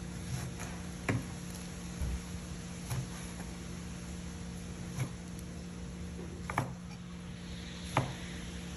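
Scattered light knocks and clicks of kitchen utensils, about seven spread unevenly, over a steady low hum.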